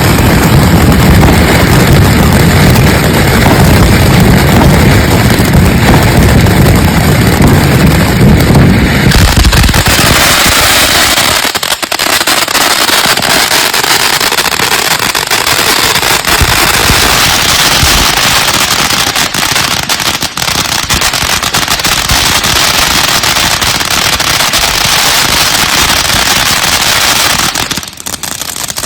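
Consumer aerial fireworks going off: a dense run of deep booming shots for about the first nine seconds, then a long stretch of loud crackling and hissing with fewer booms, easing off near the end.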